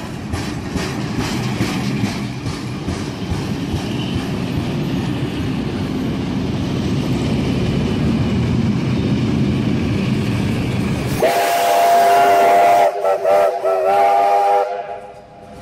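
Heritage train carriages rolling past with a steady rumble and wheel clicks. About eleven seconds in, the chime whistle of NSW C30T class steam locomotive 3016 sounds a long blast, breaks into a few short toots, and cuts off just before the end.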